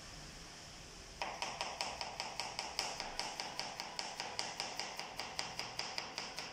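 Kitchen knife rapidly chopping onion on a plastic cutting board: an even run of sharp taps, about five a second, starting about a second in.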